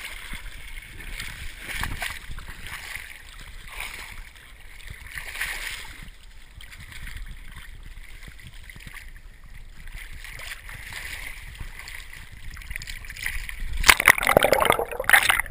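Water lapping and sloshing around a GoPro in its waterproof housing as it bobs at the surface, sounding muffled. About fourteen seconds in, loud splashing and churning as the camera is washed over and dips under the water.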